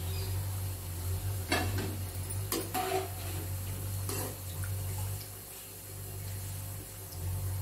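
Masal vadai (lentil fritters) sizzling in hot oil, a steady bubbling hiss. A few short metal clinks of a slotted steel spoon against the pan and strainer.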